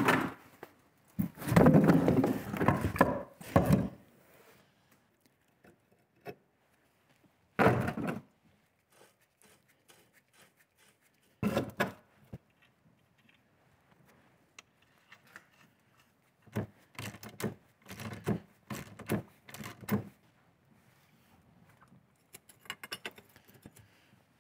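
Intermittent metal knocks and clanks of a steel tractor front fender and its bracket being fitted and bolted on, with a wrench worked on the bolts. The loudest part is a long clattering stretch about one to four seconds in, with single knocks later, a run of knocks a few seconds before the end and a quick series of light ticks near the end.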